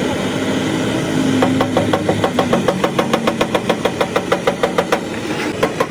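A fast, even run of sharp knocks, about seven a second, lasting about three and a half seconds over a steady engine hum.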